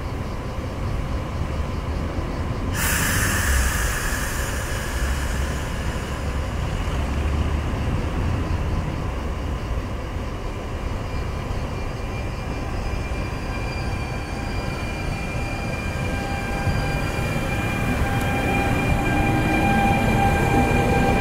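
FS E464 electric locomotive pulling a regional train away from a station: a steady low rumble, a burst of hiss about three seconds in, then an electric whine from the traction equipment that grows and starts to rise in pitch near the end as the train gathers speed.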